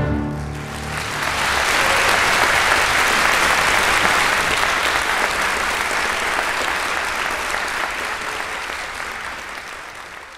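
An orchestra's last chord dies away in the first second, then a concert audience applauds steadily, the applause gradually fading out near the end.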